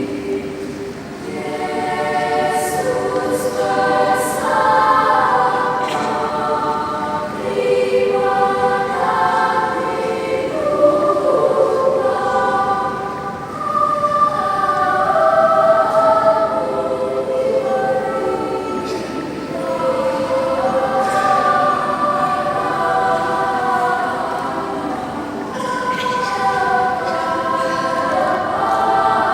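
Children's mixed choir singing a sacred choral piece, several voice parts holding and moving between sustained notes.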